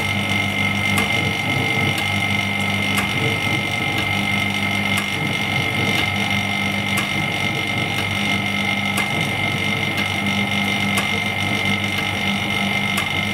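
LCD separator machine running, its vacuum pump on and its motor rolling the steel cutting wire: a steady electric hum with a high whine, and a light tick about once a second.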